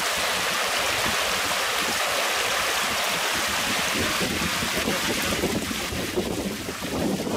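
Shallow rocky forest stream rushing over stones in a steady hiss.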